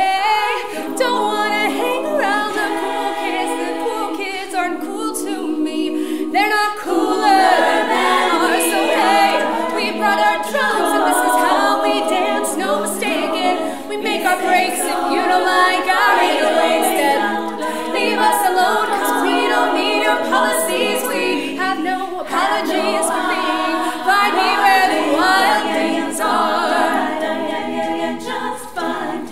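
All-female a cappella group singing: a woman's lead vocal over layered backing voices, with no instruments.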